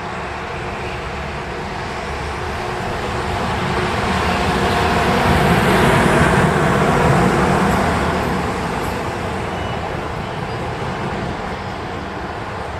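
A train passing by: a steady rumble and rush that builds, is loudest about halfway through, then fades away.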